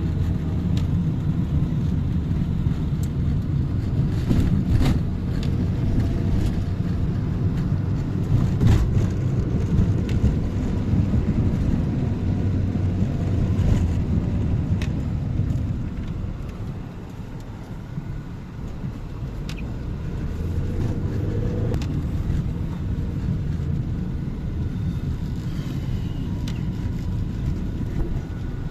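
Road vehicle noise: a steady low engine and road rumble that eases for a few seconds midway, with scattered small clicks and knocks.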